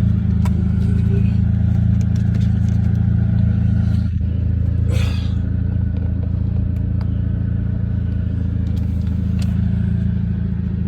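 Mercedes-Benz C230 engine idling steadily, with a deep exhaust drone that the owner puts down to a hole in the muffler or a bad catalytic converter. A short rustle about five seconds in.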